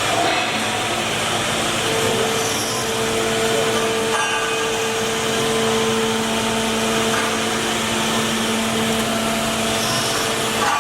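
A 1530 CNC router running: a steady whine, with a second lower tone, over a constant rushing noise.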